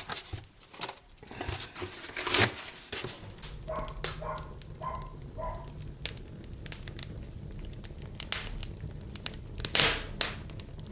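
Crinkling and rustling handling noise with scattered sharp clicks and knocks. Four short pitched chirps come about halfway through, over a low steady hum that begins a few seconds in.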